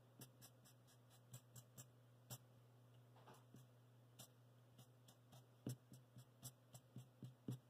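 Black felt-tip marker flicking quick short strokes onto paper, a string of soft, irregular ticks a few times a second.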